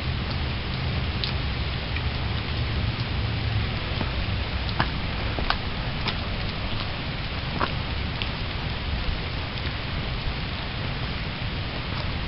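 Steady heavy rain pouring down, with scattered louder drops ticking sharply and a low rumble underneath.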